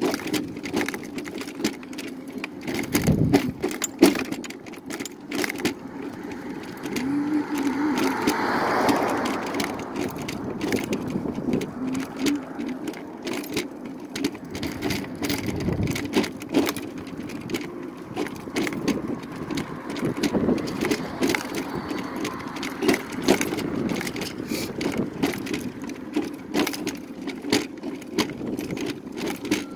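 Electric mobility scooter running along a concrete sidewalk: a steady motor hum with frequent rattles and clunks as it rolls over the slab joints. A broader swell of noise comes about eight seconds in.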